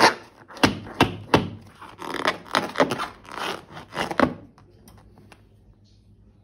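Close-up handling noise of slime and balloons in slime-making: a quick run of sharp clicks and crackly, scratchy scraping that stops about four seconds in, leaving only faint sound.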